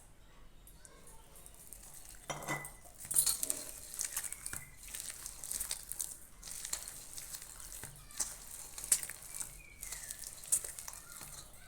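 Wet egg-and-flour batter with grated vegetables being mixed in a bowl, a run of quick irregular mixing and scraping noises that starts about two seconds in after a knock.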